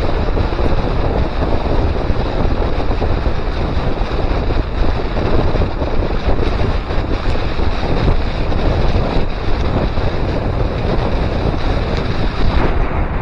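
Loud, steady wind rush on the microphone of a bike-mounted action camera, from riding downhill at about 30 mph.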